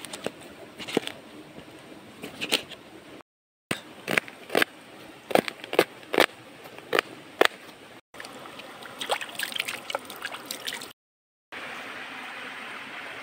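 Knife cutting tomato and then red onion on a banana leaf: sharp cutting clicks, about two a second at the busiest, in short spells broken by brief silences. Near the end, a shallow stream flowing steadily.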